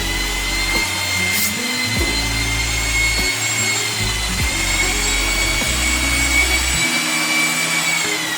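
A power tool motor running steadily with a high whine that sags slightly near the end, over background music with a stepping bass line.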